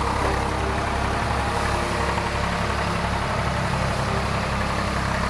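Threshing machine running steadily in the field as crop is pitched into it: a constant low engine drone under a dense rushing noise from the machine.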